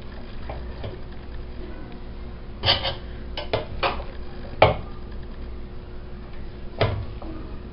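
A metal serving spoon clinking against metal cooking pots as picadillo stuffing is scooped out and packed into a turkey. Several sharp clinks come from about two and a half seconds in, the loudest near the middle and one more near the end.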